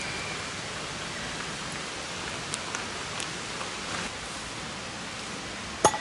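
A steady even hiss, with a few faint clicks in the middle and one sharp, louder click near the end.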